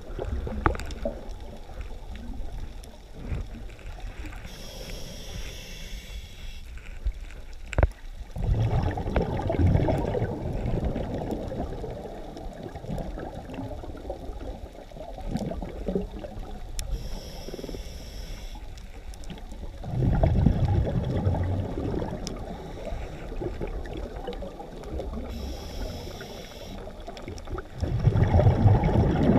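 Scuba diver breathing through a regulator, heard underwater: a soft hiss on each inhale, then a louder burst of exhaled bubbles gurgling, three breaths about ten seconds apart.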